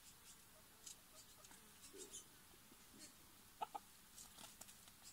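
Chickens clucking faintly now and then, with two short, slightly louder clucks about three and a half seconds in and a few light ticks between; otherwise near silence.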